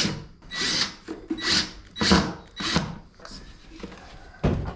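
Wooden beehive parts being worked with a tool: five or six short rasping strokes on the wood about 0.6 s apart, fading after about three seconds, then one sharp knock near the end.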